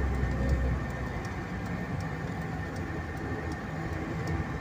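Vehicle driving: steady low engine and road rumble.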